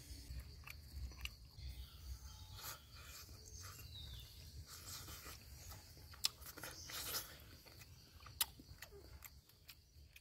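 A person chewing and biting cooked fish, with irregular small crunches and mouth clicks over a low steady rumble.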